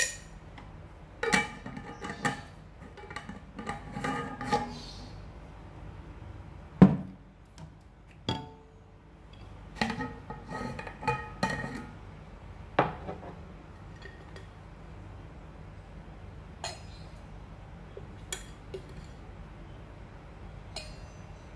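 A spoon clinking against glass jars and a stainless steel cup as cocoa powder is scooped and stirred: clusters of short ringing clinks, with a louder knock about seven seconds in and a few scattered clicks near the end.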